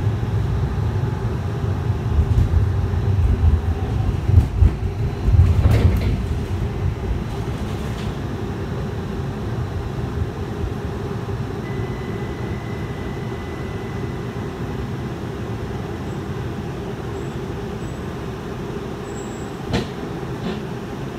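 Tempe streetcar running on its rails, heard from inside the car: a steady low rumble of wheels and motors, heavier with a few knocks in the first six seconds, then settling to a steadier, quieter run. There is a single sharp click near the end.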